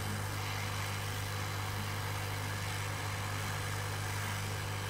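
Hot air rework station blowing hot air from its handpiece: a steady low hum under an even hiss of air.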